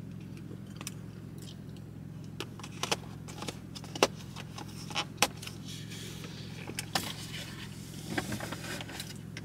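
Irregular sharp clicks and clinks, several loud ones about four and five seconds in, from a spoon and a plastic food container being handled, over a steady low hum.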